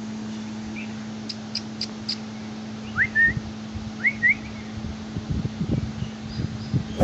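Two short rising whistled chirps about a second apart, each a quick upward slide then a brief higher note, after a few quick high chips, over a steady low hum; a few soft low knocks near the end.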